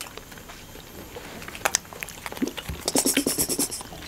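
Slurping and sucking konjac jelly out of squeezable plastic pouches: small wet mouth clicks, then a louder, hissy burst of slurping about three seconds in.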